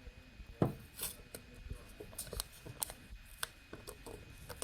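Faint scattered clicks and rubbing of small objects being handled by hand, likely a solder paste jar and its label, with a faint steady high tone underneath.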